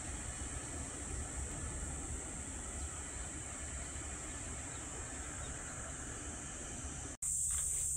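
Steady high-pitched insect chorus over a low rumbling noise, cut off suddenly about seven seconds in. A louder insect chorus follows at once, with footsteps on a forest trail starting near the end.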